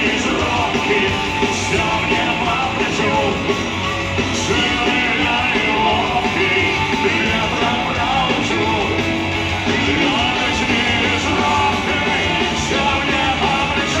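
Live punk rock band playing loud and steady: electric guitars, bass and drums, with regular cymbal crashes every couple of seconds.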